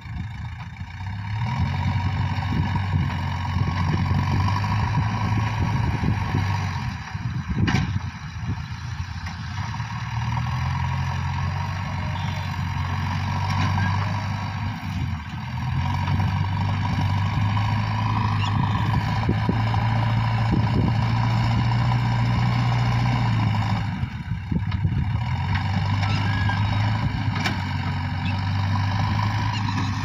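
JCB 3DX backhoe loader's diesel engine running as the machine works, its note rising and falling every several seconds as the load changes. There is a single sharp knock about eight seconds in.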